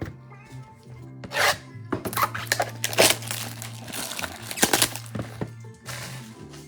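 A sealed box of trading cards being opened: packaging rustles, tears and scrapes in a run of scratchy bursts over quiet background music.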